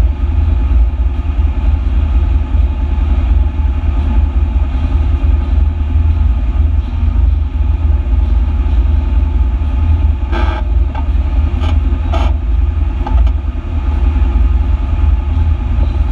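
A stopped vehicle's engine idling with a steady low rumble. There are a few short knocks or rattles between about ten and twelve seconds in.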